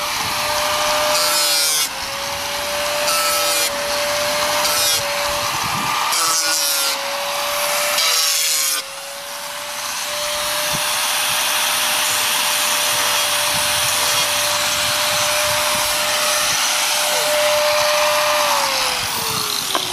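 Electric angle grinder grinding fiberglass: the motor whine dips each time the disc bites in during several short passes, then holds through a long continuous grind. Near the end it is switched off and its whine falls as it spins down.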